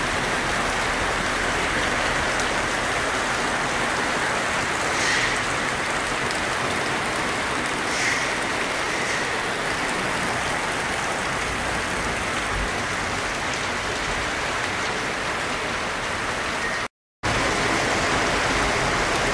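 Steady rain falling on a multiwall (alveolar) polycarbonate roof, heard from beneath as an even hiss of drops. A couple of louder drop hits stand out about five and eight seconds in. The sound breaks off for a moment near the end, then the rain resumes.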